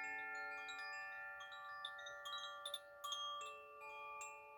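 Koshi chimes ringing: several overlapping, long-held tones with light tinkling strikes, slowly fading away.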